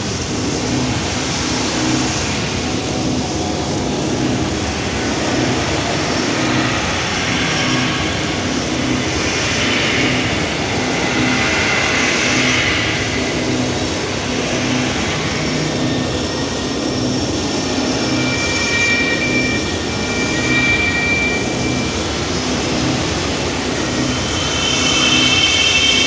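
Abstract experimental electronic noise music from a cassette: a dense wash of noise over a regular low pulse, with hiss swelling and fading higher up. A thin high tone enters about two-thirds of the way through, and near the end a louder cluster of high tones comes in.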